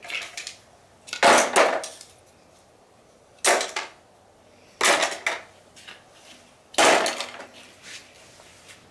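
Pieces of a brittle, age-embrittled plastic bucket clattering as they are dropped into the broken bucket, about four sharp plastic knocks a second or two apart.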